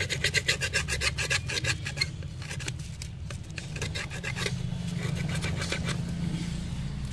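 Thin metal pick scraping old adhesive off a smartphone's middle frame as it is cleaned for a new display: quick, rasping scratches in short bursts, densest in the first two seconds, then again about four and five seconds in.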